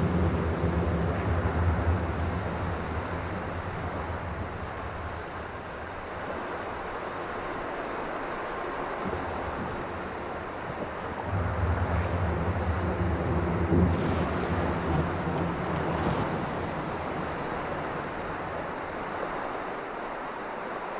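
Dark cinematic water drone: a steady rushing water texture under a low, pitched drone. The drone fades out in the first few seconds and swells back in about eleven seconds in.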